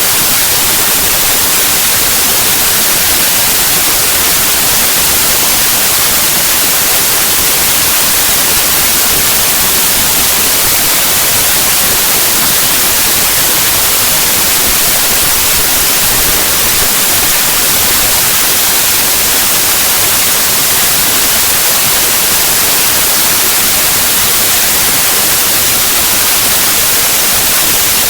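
Loud, steady white-noise hiss: the compressed bytes of a zip archive played back as raw 8-bit unsigned mono audio. Because the data is compressed it is close to random, so it comes out as even static with no tones or rhythm.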